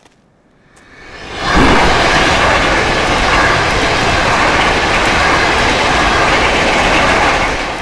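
A train rushing past close by at speed: the noise swells up within about a second and a half, holds loud, then dies away near the end.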